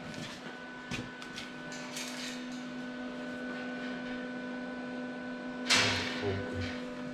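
Steady workshop electrical hum with a few light knocks, and a short loud burst of noise about six seconds in.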